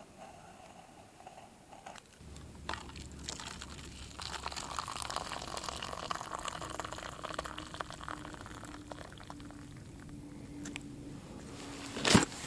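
Coffee being poured from a French press into a cup, a liquid pour lasting several seconds, with one sharp knock near the end.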